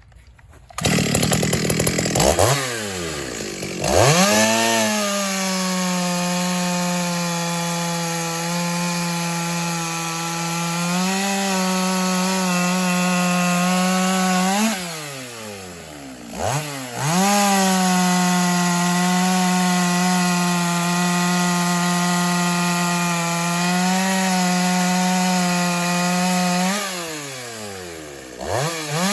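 Ported Stihl 024 two-stroke chainsaw with a full-chisel chain cutting wood at full throttle. It makes two long cuts of about ten seconds each, holding a steady pitch under load. Between them the engine briefly screams up in pitch and drops back as the chain comes free of the wood.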